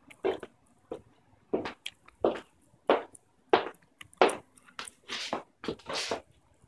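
Rubbing and knocking handling noise on a phone's microphone as the phone is moved and tumbled about. It comes as a string of short scuffs, about one every two-thirds of a second.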